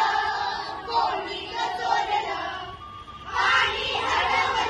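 A group of children's voices in unison, loud and together, breaking off briefly about three seconds in and then starting again.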